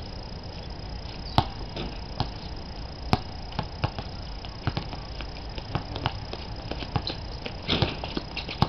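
A basketball bouncing on an outdoor concrete court: scattered sharp knocks, the loudest about one and a half and three seconds in, with lighter taps and shoe scuffs between, over a steady high thin whine.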